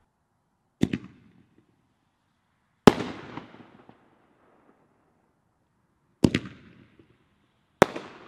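Black Cat Color Bombs firework going off: four sharp bangs at uneven intervals, each dying away within about a second.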